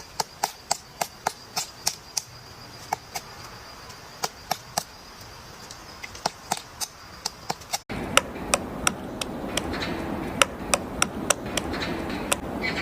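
A woodpecker pecking into wood to excavate a nest hole: sharp, separate knocks in uneven runs of a few per second. After a cut about eight seconds in, the background hiss is louder.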